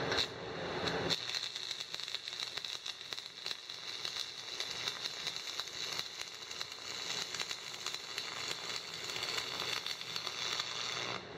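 Stick (shielded metal arc) welding with a 1/8-inch 6013 electrode at 180 amps on 3/16-inch steel. The arc crackles and sizzles steadily, like frying, while a drag bead is run, and cuts off just before the end.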